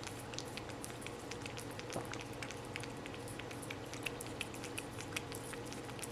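Two cats licking a frozen treat on a stick: quick, irregular wet licking clicks over a steady low room hum.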